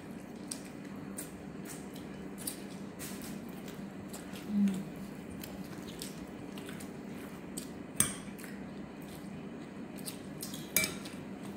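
Eating by hand from glass plates: soft scattered clicks and taps of fingers and food against the dishes, with a sharper click about eight seconds in and another near the end, over a faint steady hum.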